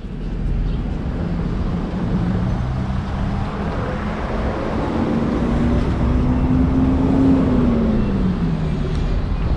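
Motor vehicle engine in street traffic, its pitch climbing slowly and then dropping back near the end, over a steady low rumble.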